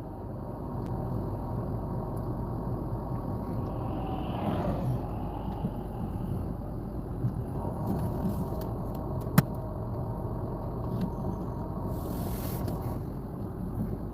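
Steady low rumble of a vehicle, with one sharp click about nine seconds in.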